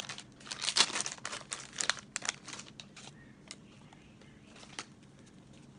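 Plastic food packaging crinkling as seasoning sachets and a clear plastic bag are handled. The crackling is dense for the first two and a half seconds, then thins to a few scattered crinkles.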